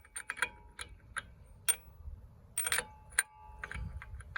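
Irregular sharp metallic clicks and clinks, a few with a short ring, as a 36 mm socket and its tools are fitted onto a truck's CV axle nut.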